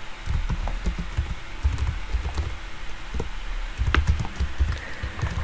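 Typing on a computer keyboard: a run of irregular keystrokes as a line of code is entered.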